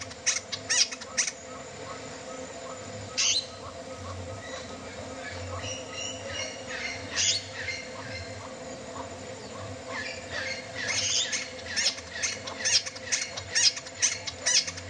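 Band-backed wren calling: short, sharp notes, a quick run at the start, single notes about 3 and 7 seconds in, then a longer rapid run from about 10 seconds in until near the end.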